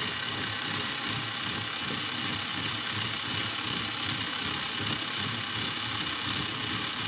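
Motorized satellite-dish actuator (linear jack) running, its small motor and reduction gears driving the rod with a steady whir and a high whine. The motor runs freely after being cleaned of the dirt that had jammed it.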